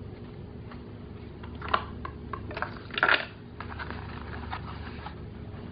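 Small plastic toy pieces being handled: scattered light clicks and taps, with a brief louder rustle about three seconds in, over a steady low hum.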